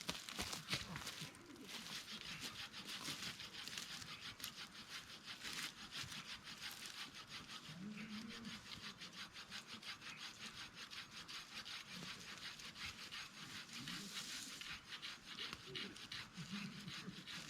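Hand saw cutting through a piece of firewood with quick, even back-and-forth strokes.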